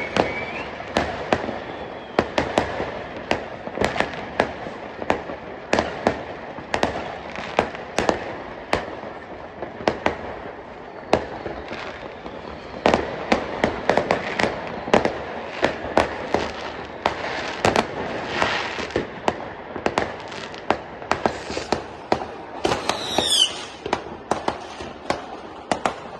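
Fireworks going off all around in quick, irregular succession, dozens of sharp bangs and cracks overlapping. A whistle falling in pitch cuts through near the end.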